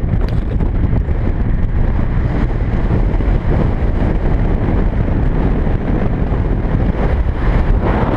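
Wind buffeting the microphone as the car drives with a window open, over the low rumble of road noise.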